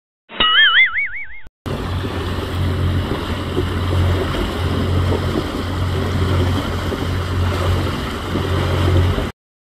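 A short sound effect with a wavering, warbling pitch, about a second long. It is followed by a steady rush of wind and water with a low rumble underneath, as an inflatable dinghy is towed through the water behind a sailboat; this stops abruptly near the end.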